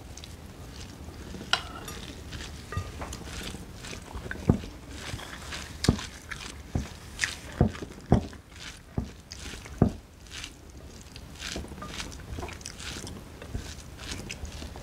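Eating sounds: irregular smacks, clicks and taps from chewing and from hands and a spoon working rice on plates, with a steady low hum underneath.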